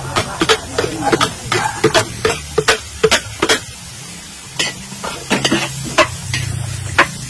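Metal spatula scraping and clanking against a large steel wok as food is stir-fried, in sharp irregular strokes about two a second with a short pause midway, over a frying sizzle.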